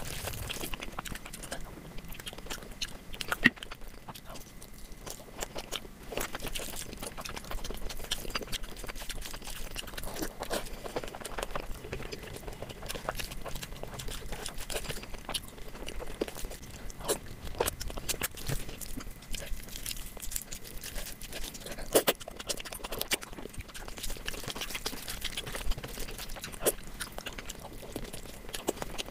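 Close-miked mukbang eating sounds: a person chewing and biting food, with many short sharp clicks and two louder snaps, one a few seconds in and one about three-quarters of the way through.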